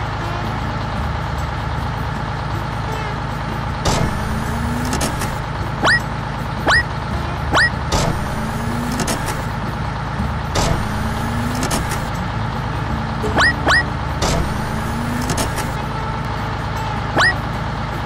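Cartoon engine sound of a wheel loader running steadily. Several short, rising squeaky chirps and a few knocks come over it.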